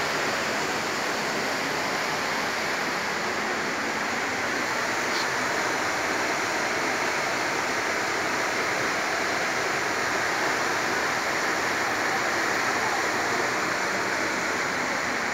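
Steady, even rush of fast-flowing water from a stream running below the road.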